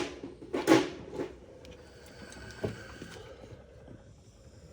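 Hand tools being handled while reaching for a wrench: a few short scrapes and clatters in the first second and a half, then a single sharp knock near the middle.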